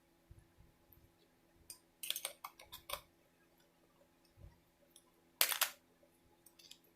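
Small metal tools and screwdriver bits being handled in a small tool kit: scattered light clicks, a quick run of them about two seconds in and a louder clatter about five and a half seconds in.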